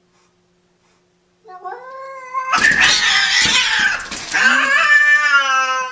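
Two cats fighting through a glass door: a yowl rising in pitch about a second and a half in, then a loud, noisy burst of hissing and screeching as they swat at each other, ending in a long yowl that slowly falls in pitch.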